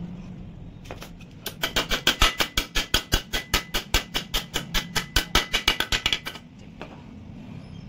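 Rapid metal-on-metal tapping, about eight strikes a second for roughly five seconds, as a steel rod is used to drive a 62003 ball bearing into a motorcycle engine's aluminium crankcase until it seats.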